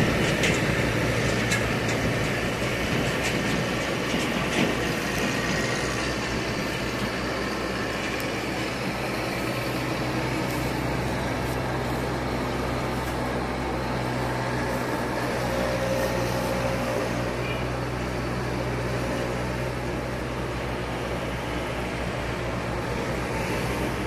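Baroness LM320AF ride-on four-wheel mower running steadily, its engine humming as the cutting deck mows through tall grass. A few sharp ticks come in the first few seconds.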